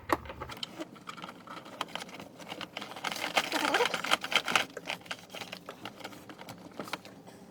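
Rustling, crinkling and light clicking of car carpet and wiring being handled as an RCA cable is tucked underneath and fed along, densest in the middle.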